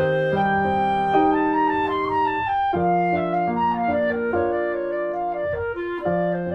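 Instrumental background music: a slow melody of held notes over sustained chords.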